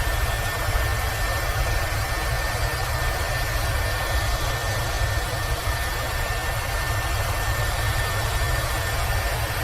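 Airbus H130 (EC130 Eco Star) helicopter in steady flight: an even rotor and turbine noise with a heavy low rumble and a thin steady whine above it.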